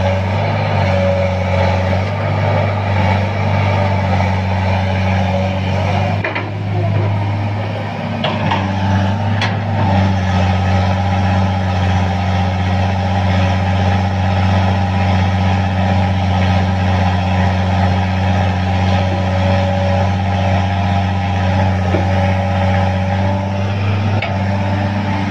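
Caterpillar excavator's diesel engine running steadily under load while digging and loading dirt. The engine note shifts briefly about six to eight seconds in, and there is a single sharp knock about nine and a half seconds in.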